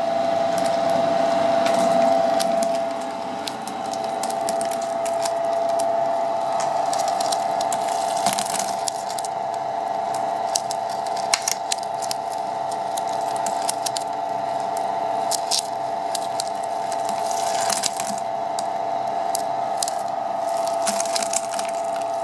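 Flake ice machine running: a steady mechanical drone with a few held tones, under irregular sharp crackling clicks as ice flakes break off the freezing drum.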